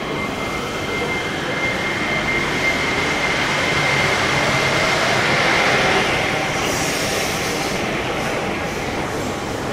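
Yurikamome rubber-tyred automated guideway train pulling out past the platform screen doors, its running noise swelling to a peak about five or six seconds in and then fading. A steady high whine runs through the first part and dies away as the train leaves.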